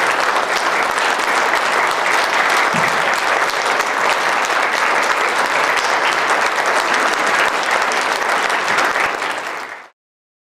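Audience applauding, a steady, dense clapping that fades out quickly and stops just before the end.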